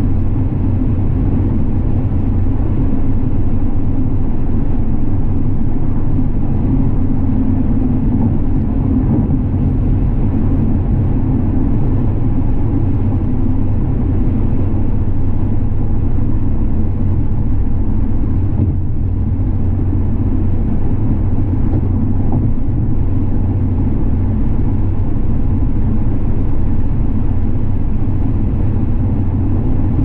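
Car driving at a steady pace: a continuous low rumble of engine and road noise, with no notable changes.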